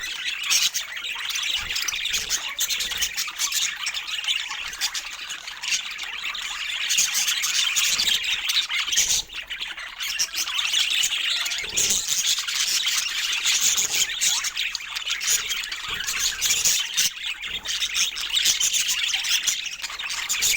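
Budgerigars chattering and chirping, many quick calls overlapping without a break.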